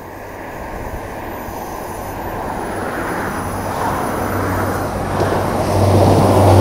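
Diesel multiple-unit passenger train approaching along the line, its engine hum and wheel-on-rail rumble growing steadily louder as it nears.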